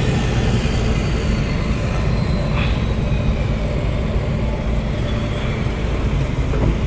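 Sany hydraulic excavator's diesel engine idling steadily.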